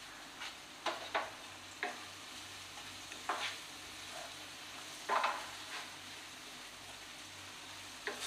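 Chopped onions sizzling as they fry in a non-stick pan, stirred with a spatula that scrapes and knocks against the pan at irregular moments, about eight times.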